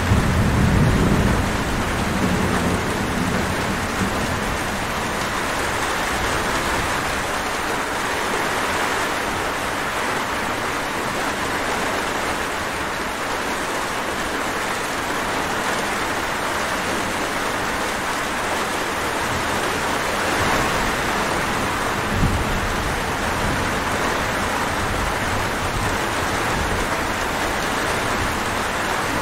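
Steady heavy rainfall, with a low rumble of thunder in the first few seconds and a brief, shorter low rumble later on.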